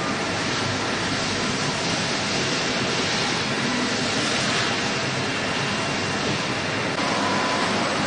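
CNC router spindle with an end mill cutting a foam mold: a steady, even rush of cutting noise with a faint high whine, a little louder from about seven seconds in.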